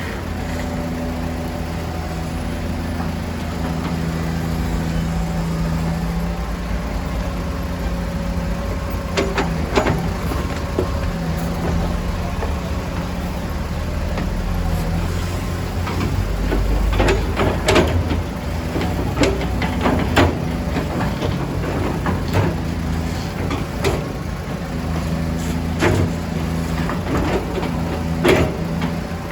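Heavy diesel vehicle engine running steadily with a low hum, with repeated sharp clanks and knocks from about a third of the way in.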